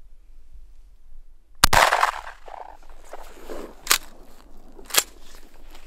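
A single loud 20-gauge shotgun shot with a short ringing tail, followed by two shorter sharp clicks about a second apart.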